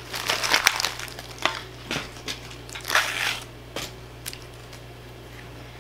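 Thin plastic wrapping of a toy blind bag crinkling and tearing as it is opened, in several bursts over the first three and a half seconds, followed by a few lighter crackles.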